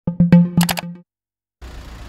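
Short electronic intro sting: a quick run of sharp percussive hits over a low held note, with bright high notes, cutting off after about a second. After a brief silence, the low rumble of street traffic begins near the end.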